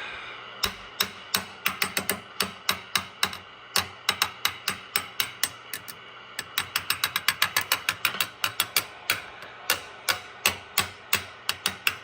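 A screwdriver handle tapping the tubes and chassis of a Swan 700 transceiver, heard as a series of sharp clicks over faint receiver hiss. The clicks come a few a second at first and faster, about four a second, from about halfway. The tapping is a test for a microphonic tube, which the owner traces to the audio output tube.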